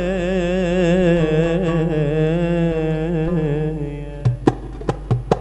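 A male voice holds one long, wavering note with vibrato in Arabic folk singing, over oud. After about four seconds the held note ends and hand percussion plays a few sharp strikes.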